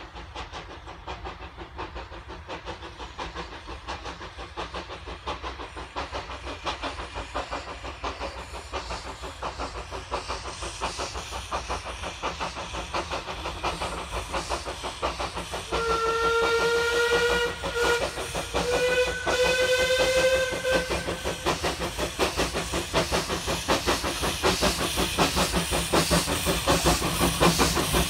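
Two small steam locomotives double-heading a train, their exhaust beats chuffing rapidly and getting louder as they approach. Over the second half come two held steam whistle blasts, the second slightly higher and rising.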